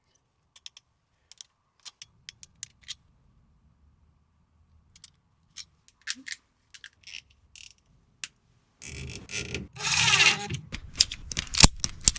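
Scattered light clicks and taps of hands working with wire and small fittings. About nine seconds in, a much louder stretch of rustling and scraping handling noise begins.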